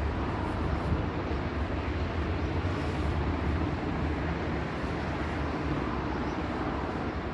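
Steady low background rumble with a faint even hiss above it.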